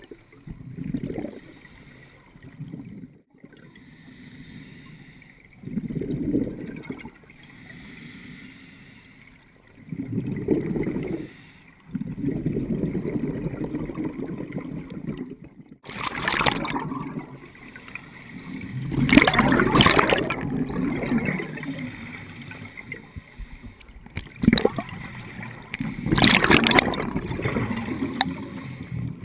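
Scuba regulator breathing heard underwater through the camera housing: exhaled air bubbles gurgling out in bursts every few seconds, with quieter water noise between them. The bursts grow longer and louder in the second half.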